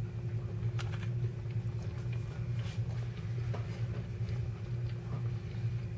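Faint chewing of a bite of hot brownie, with a few soft clicks, over a steady low hum.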